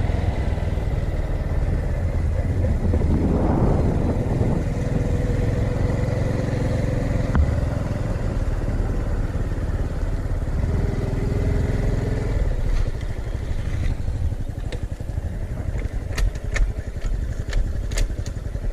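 Honda Cross Cub 110's small single-cylinder four-stroke engine running while riding, with steady engine pitch through most of it. About two-thirds of the way in it goes quieter, with scattered sharp clicks and ticks.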